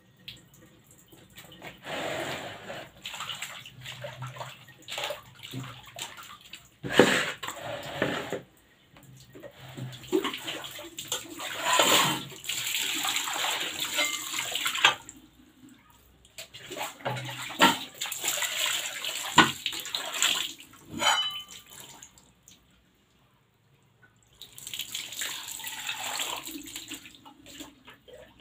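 Water poured from a plastic jug over a metal potato-chips cutting machine, splashing onto the floor in several pours with short pauses between them. A few sharp knocks of the machine's parts being handled come in between.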